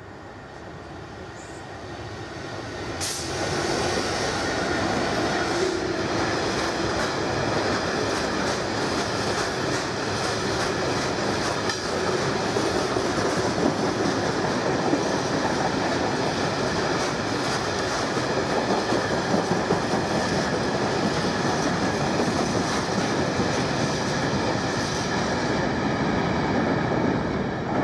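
Engineering train of ballast wagons hauled by a Class 66 diesel locomotive passing at speed. The sound swells over the first few seconds as the train draws level, then holds as a steady rumble and clickety-clack of the wagons' wheels over the rail joints.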